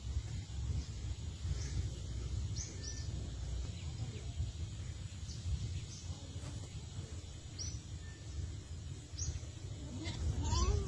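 Outdoor ambience: small birds chirping now and then in short high notes over a steady low rumble, with a brief pitched call that rises and falls near the end.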